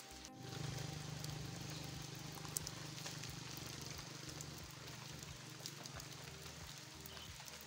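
Rain falling, with scattered drips ticking over a steady hiss. Under it runs a low steady rumble that comes in about half a second in after a brief break.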